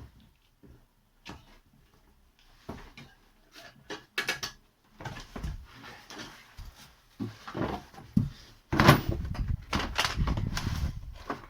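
Scattered metallic knocks and clicks of hand tools being worked on a car. From about nine seconds in comes a longer run of dense clattering.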